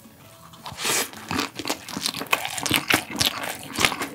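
Close-miked eating of a perilla-leaf wrap of bibim noodles and grilled pork belly: a bite about a second in, then crunchy, wet chewing at about four strokes a second.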